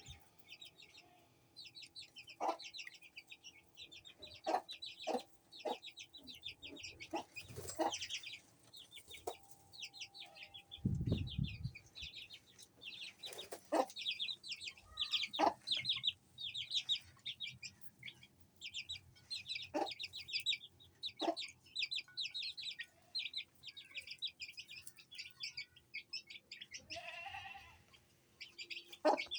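Aseel chicks peeping constantly in rapid high-pitched cheeps, with the hen's short clucks now and then. A low thud about eleven seconds in.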